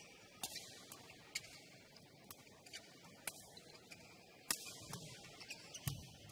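Badminton rally: sharp racket strikes on the shuttlecock about once a second, six in all, with shoes squeaking and a low footfall thud on the court near the end.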